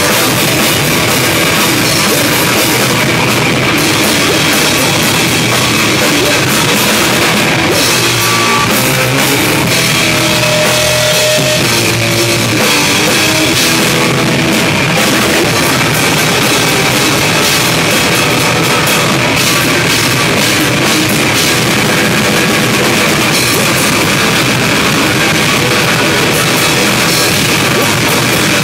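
A rock band playing loud and live: a drum kit and an electric guitar, with a voice shouting into a microphone near the end.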